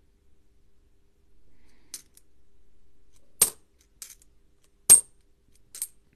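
Australian 50-cent coins (cupronickel) clinking against each other as a small stack is handled and slid apart in the fingers: about five sharp clinks, the loudest about three and a half and five seconds in, with faint rubbing between them.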